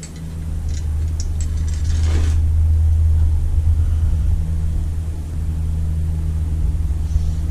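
A loud, low mechanical rumble with a steady hum, swelling over the first two seconds and then holding. A brief rustle about two seconds in.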